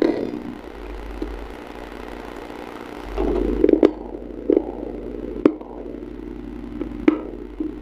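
Close-miked chewing of something hard and brittle, mouth closed: irregular sharp cracks and short crunches, coming thicker from about three seconds in.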